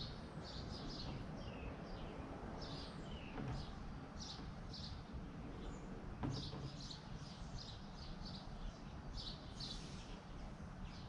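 Small birds chirping over and over in short high chirps, with a few downward-sliding notes, over a steady low background rumble. A faint knock comes about three and a half seconds in and another just after six seconds.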